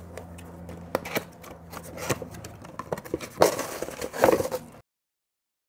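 Cardboard box being opened and handled: scraping, rustling and tapping of the flaps, loudest a little past the middle. The sound cuts off abruptly about a second before the end.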